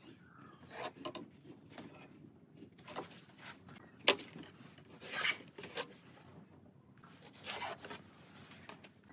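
A pen scratching along the edge of a steel ruler across wooden boards as layout lines are marked, in several short scratchy strokes, with the ruler shifting on the wood and a sharp tap about four seconds in.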